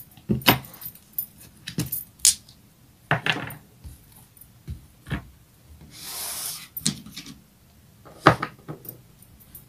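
Scattered clicks and taps of small hard objects being handled on a wooden table, with a short rustle about six seconds in.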